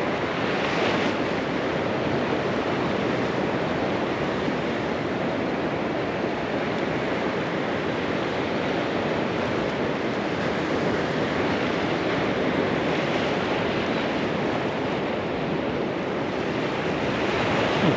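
Surf breaking steadily on a sandy Gulf beach, with wind buffeting the microphone.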